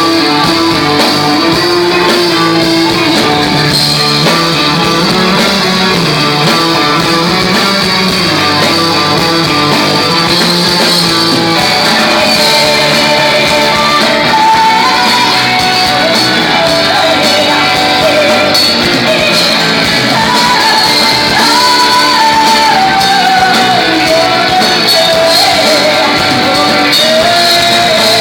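A rock band playing live, with guitars and a singing voice.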